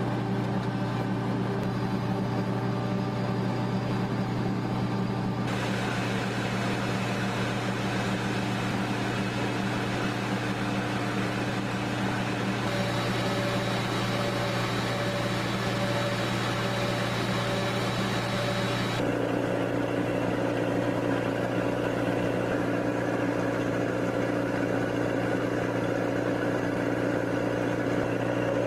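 Tor-M2 air-defence missile vehicle running, a steady mechanical hum at a constant low pitch with higher overtones. The hiss above it changes abruptly about five, thirteen and nineteen seconds in.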